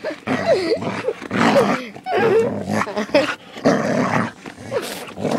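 A dog growling right at the microphone, a quick run of short growls two or three a second.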